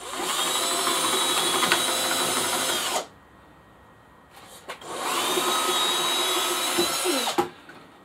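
Cordless drill boring a hanging hole through the back of a wooden bird box, run twice for about three seconds each with a pause of about two seconds between. The motor whines up to speed and winds down at the end of the second run.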